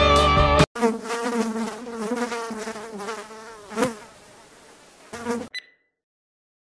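A fly buzzing, its pitch wavering up and down, with a brief loud swell about four seconds in; the buzzing cuts off abruptly shortly after five seconds. It starts just as guitar music stops, less than a second in.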